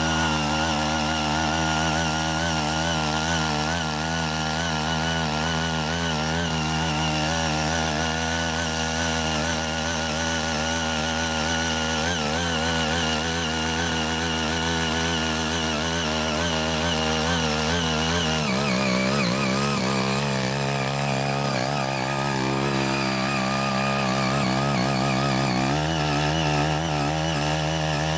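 CHING YEE CY80 mini power tiller's small engine running steadily under load as its rotary tines churn through weeds and soil. About two-thirds of the way through, the engine's note changes for several seconds, then returns to its earlier pitch.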